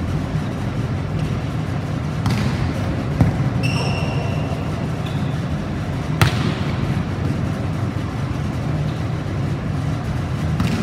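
Volleyball being played: about three sharp hits of hands and arms on the ball, the strongest about six seconds in, with a short squeak near the middle, over a steady low hum.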